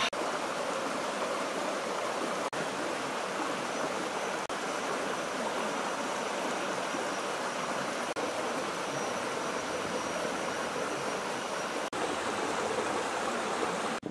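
Water of a shallow rocky stream running, a steady even rush that dips for an instant a few times.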